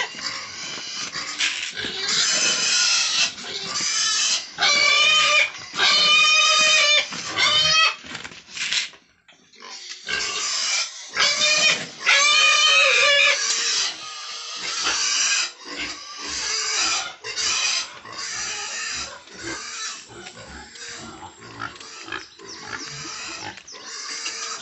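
Pigs squealing loudly and repeatedly, high-pitched and strained, in runs of calls with a brief pause about nine seconds in; the calls turn shorter and softer in the second half. Squealing of hungry pigs as their feed is being brought.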